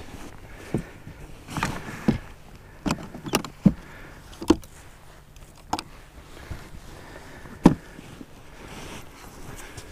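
About nine irregular knocks and clunks of ice-fishing gear being handled and set down in a sled, the loudest near the end.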